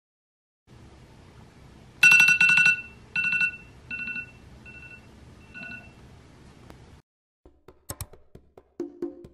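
iPhone alarm tone going off: a run of bright two-tone beeps, loudest at first, then shorter and fainter bursts until they stop about six seconds in. A few clicks follow, one sharp one about eight seconds in.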